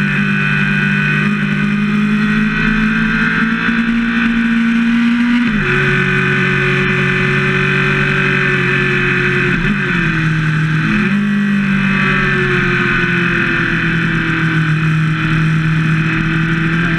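Motorcycle engine running steadily under way, its pitch climbing slowly, then dropping sharply about five seconds in and dipping briefly again around ten seconds before rising gently, with steady wind and road rush over it.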